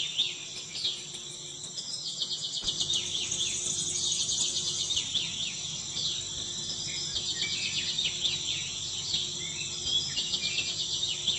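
Insects and birds chirping: a steady high trill under many quick, repeated chirps.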